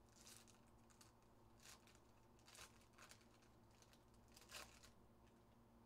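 Faint crinkling and tearing of a plastic trading-card pack wrapper being opened by hand, a handful of brief rustles with near silence between them.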